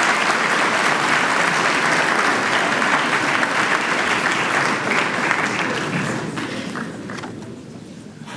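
An audience applauding: loud, steady clapping that fades away over the last couple of seconds.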